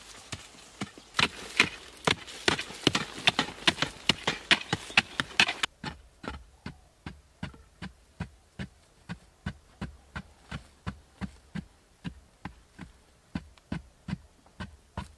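Digging tools chopping into hard red earth in quick repeated strokes, with loose soil and stones scraping and spilling. About six seconds in the sound turns duller: steady thuds of strokes into the ground, about three a second.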